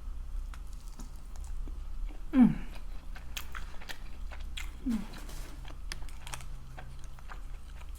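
Close-miked chewing of chicken wings: wet mouth clicks and smacks with light crunching. A short falling hum about two and a half seconds in, the loudest sound, and a fainter one about five seconds in.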